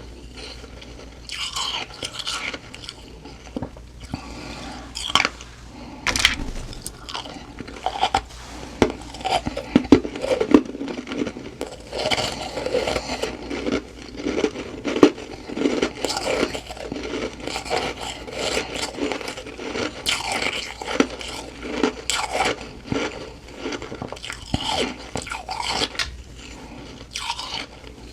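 Close-miked crunching and chewing of soft, powdery humidifier-frost ice, with many sharp crackling bites in an irregular run.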